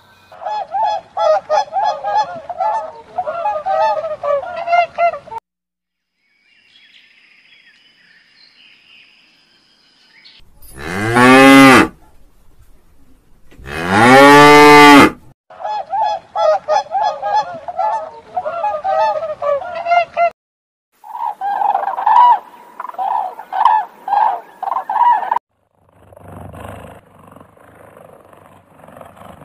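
A cow mooing twice, two long, loud moos a couple of seconds apart, between runs of rapid honking calls.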